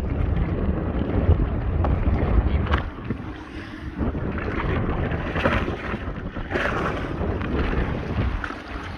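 Strong wind buffeting the microphone, heaviest for the first three seconds or so, with a few brief rustles or knocks.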